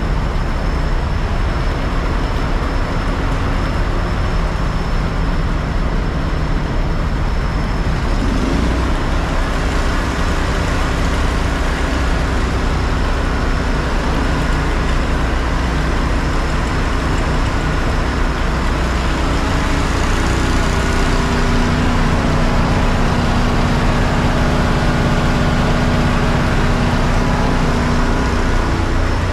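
A fire truck's engine running steadily for the whole stretch, with a thin high whine over it that stops about a quarter of the way in. After that the engine note changes, and it gets a little louder in the second half.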